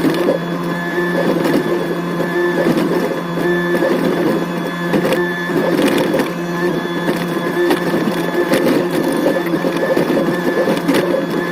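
Hydraulic excavator running steadily under load while digging, with scattered short knocks and clanks from the bucket and arm working.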